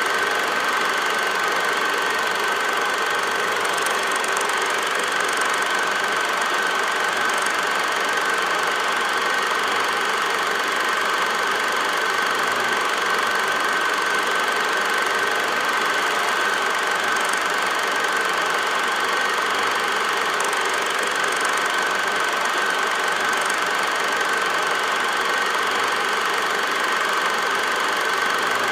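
Steady mechanical running noise with a constant high-pitched hum and a few faint ticks.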